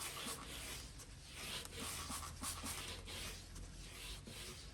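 Fine wet sandpaper on a sanding puck rubbing over a plastic headlight lens in faint, regular back-and-forth strokes, about one or two a second, cutting away the lens's old oxidised surface.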